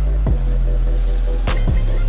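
Background music: an electronic track with a deep bass line and a heavy kick-drum beat.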